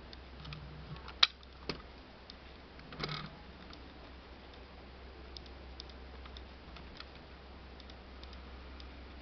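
Clicks and knocks of a plastic-and-metal scale model car being handled and turned over on a wooden surface: a sharp click about a second in, a smaller one just after, a rougher knock about three seconds in, then faint ticks.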